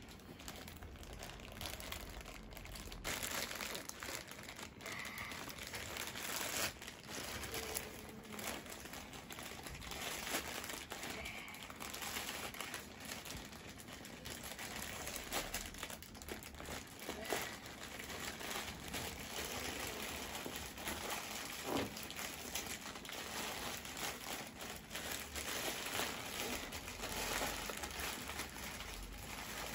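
Plastic courier bag crinkling and crumpling as a child's hands pull at it and tear it open, an irregular crackle full of quick sharp rustles.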